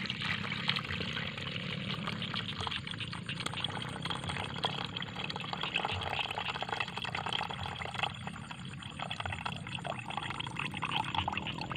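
Liquid pouring in a steady stream from a plastic bottle into a metal bucket already partly full, splashing and bubbling into the pool. This is the soaking water being drained off bait that has soaked for an hour.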